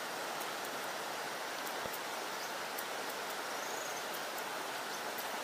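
Steady rush of a shallow river running over rocks and a small rapid, with faint high clicks scattered through it and a brief faint chirp about halfway through.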